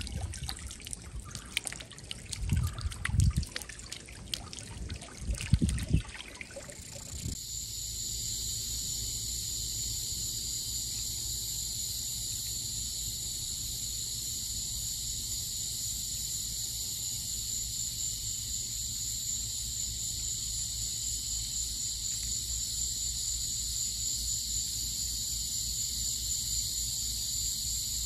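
Small garden water fountain trickling, with a few low thumps. About seven seconds in this gives way to a steady high-pitched hiss.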